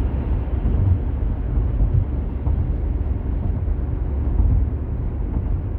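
Steady low rumble of a car's road and engine noise, heard inside the cabin while driving.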